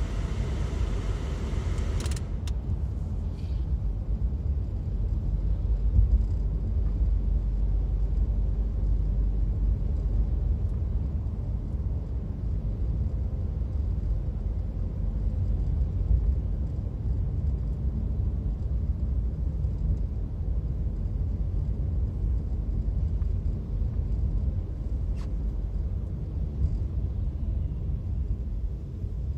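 Steady low rumble of road and engine noise heard inside a car driving on a city road. About two seconds in, a brighter hiss stops abruptly with a click.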